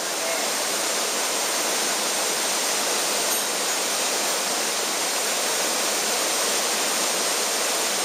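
Mountain stream pouring over rapids and a small waterfall into a rock pool: a steady, even rush of water.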